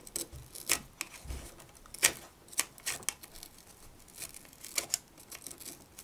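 Fibreglass-tipped cleaning pen scrubbing alkaline corrosion off the battery contacts of a Sony MZ-N707 MiniDisc player: short, irregular scratches and clicks.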